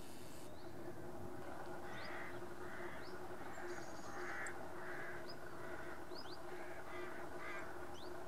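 Crows cawing repeatedly, about eight harsh calls spread over several seconds, with short high chirps from other birds over a steady low hum.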